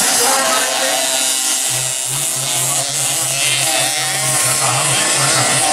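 Engines of 50cc two-stroke motocross bikes buzzing and revving as they race, their pitch rising and falling.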